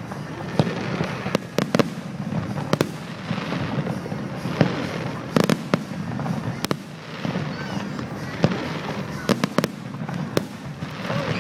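Fireworks display: a dozen or so sharp bangs of shells bursting, irregularly spaced and some in quick clusters, over a continuous noisy background.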